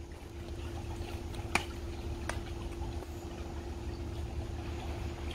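Steady low rumble with a faint continuous hum, broken by two short clicks about a second and a half and two seconds in.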